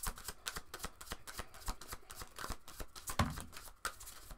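Tarot deck being shuffled by hand: a quick, irregular patter of card clicks, with a light knock about three seconds in.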